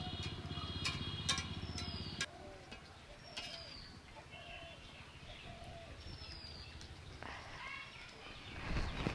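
Background music with a steady beat that stops about two seconds in, followed by birds chirping outdoors. A low thump comes near the end.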